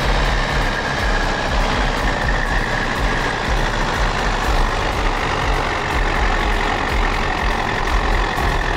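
DT-75 crawler tractor's diesel engine running hard under load, with a steady high whine over a deep rumble, while the tractor is stuck in a mud pit trying to pull itself free.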